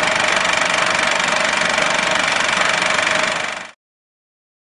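Intro sound effect: a steady whirring noise with a couple of steady tones running through it, cutting off suddenly about three and a half seconds in.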